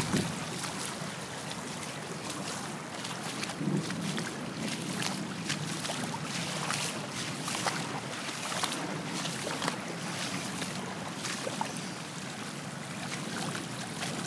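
Muddy floodwater rushing over a driveway and an overflowing roadside ditch: a steady rush with many small splashes and gurgles.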